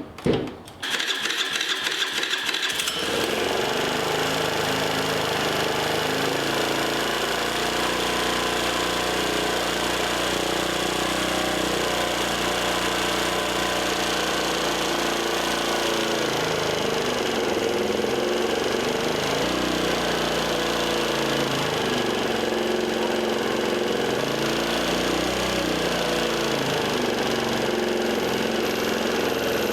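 Grom-clone mini bike's small single-cylinder engine starting about a second in, then running steadily at idle with its pitch drifting slightly up and down.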